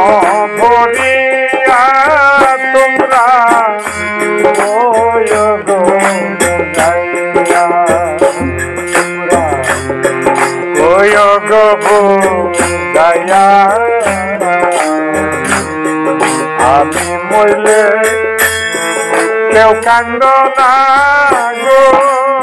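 Instrumental interlude of Bengali Baul folk music: a melodic lead instrument plays a winding, gliding tune over regular hand-drum strokes and bright jingling percussion.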